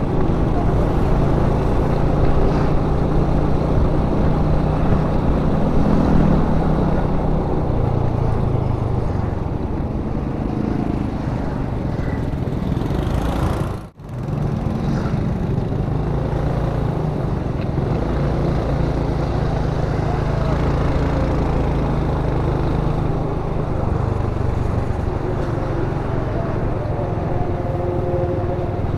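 Honda ADV150 single-cylinder scooter engine running under way, its note rising and falling with the throttle, over road and wind noise. The sound cuts out for a split second about halfway through.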